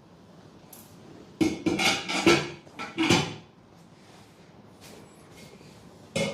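A quick run of sharp cracks and pops from the spinal joints under a chiropractic manipulation, starting about a second and a half in, with one more crack near the end.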